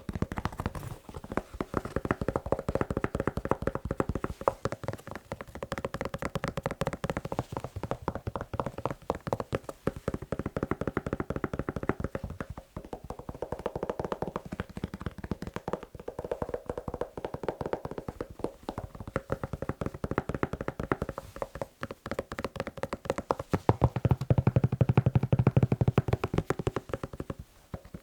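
Fast tapping on a shoe: a dense, continuous stream of quick taps with a steady ringing tone under them. About 24 seconds in the taps turn louder and deeper for a few seconds.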